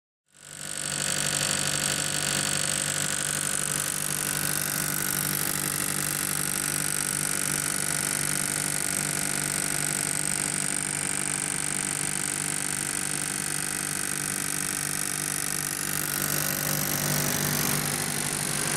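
MEP-804B 15 kW military diesel generator set, its Yanmar four-cylinder diesel engine running steadily at constant speed with an even hum.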